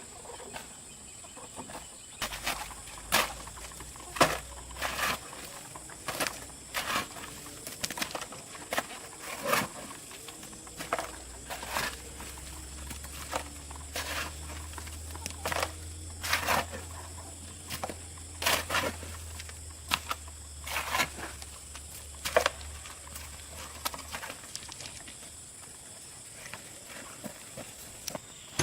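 A series of irregular sharp knocks, roughly one a second, over a steady high-pitched tone and a low hum.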